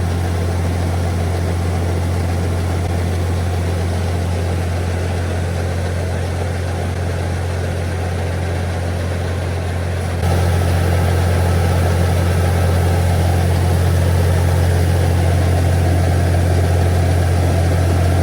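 Heavy engine running steadily, a low constant drone that steps up slightly in loudness about ten seconds in.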